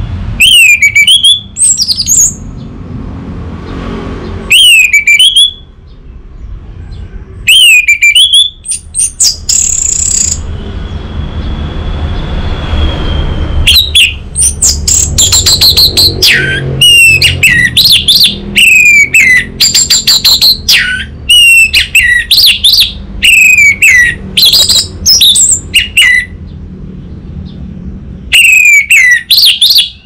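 Orange-headed thrush singing loudly: repeated phrases of sliding, falling whistles mixed with rapid trills, a few phrases at first, then an almost unbroken run through the middle. A steady low rumble sits underneath.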